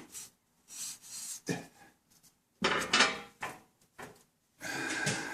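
Parts and tools being handled: rubbing, scraping and light clattering in several short bursts, the loudest about halfway through.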